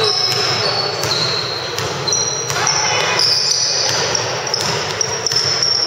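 A basketball bouncing on a hardwood gym floor as it is dribbled, with sneakers squeaking in short high chirps on the court.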